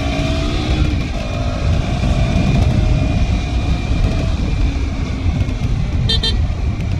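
Riding on a KTM Duke 200 motorcycle: its single-cylinder engine runs under steady wind rumble on the microphone. A brief high-pitched beep sounds about six seconds in.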